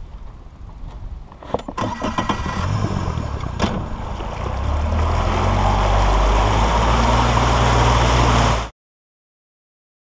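Outboard motor of a jon boat throttling up as the boat gets under way: a few sharp clacks about a second and a half in, then the engine note climbs and runs steady and loud under power. The sound cuts off abruptly shortly before the end.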